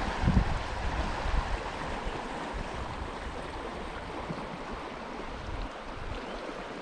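Flowing trout stream: a steady rush of water, with a few low rumbles near the start.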